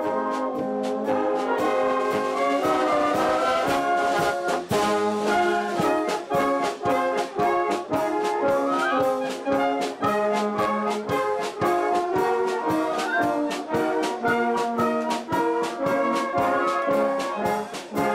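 Brass-led wind band playing live, with trombones, trumpets, saxophone, clarinets and flutes. Sustained chords move over a steady beat.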